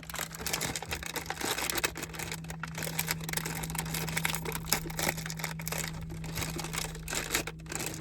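Cookie packaging crinkling and rustling in irregular crackles as it is handled and opened.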